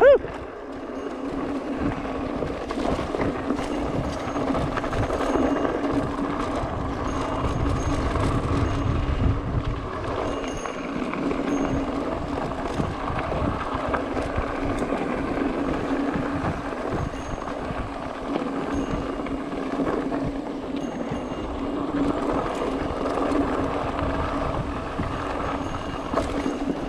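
Mountain bike rolling down a dry dirt trail, heard from the rider's own bike: a steady rattle and whir of tyres and frame over packed dirt and loose stones, with a constant hum underneath.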